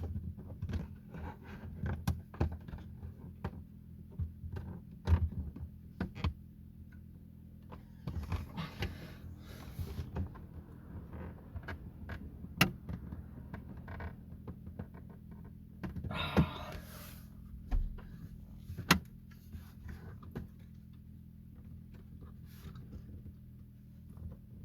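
Hard plastic car dashboard trim being pried and handled: irregular clicks, knocks and thunks while a stubborn radio fitting held by hidden clips is worked at, with a short scrape about two-thirds of the way through and a steady low hum underneath.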